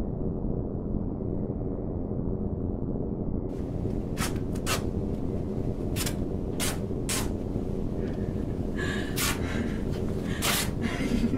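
Wallpaper being ripped off a wall: a series of quick, sharp tearing rips, about eight of them, beginning a few seconds in. A steady low drone runs underneath.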